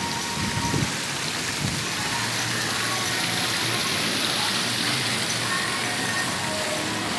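Steady hissing of falling water, like rain or a splashing fountain, with faint short tones on top.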